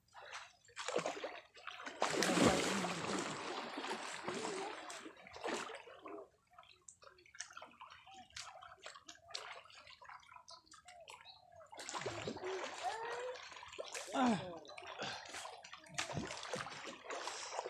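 River water splashing and sloshing as people wade and work a fishing net, with a loud rush of splashing about two seconds in and smaller splashes after. Voices call out near the end.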